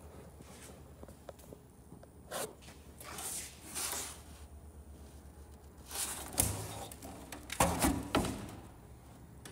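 Soft scuffs and rustles from a person moving about and handling things, in a few short bursts, the loudest about six and eight seconds in, over a faint steady low hum.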